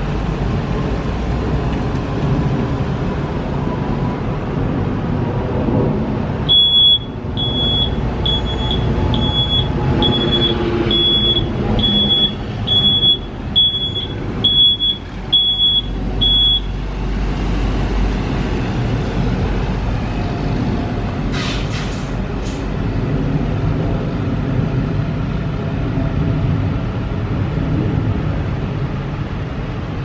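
A heavy vehicle's engine running with a steady low rumble, while a reversing beeper sounds about once a second for some ten seconds. Around twenty seconds in come a few short bursts of air hiss.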